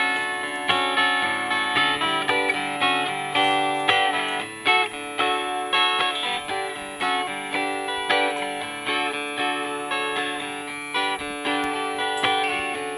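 Two acoustic guitars and a bass guitar playing a tune live, with picked and strummed notes over a bass line.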